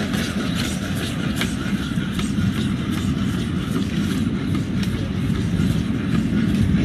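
Boston Dynamics Spot robot dog walking: a steady mechanical hum with faint, regular ticks about three to four times a second.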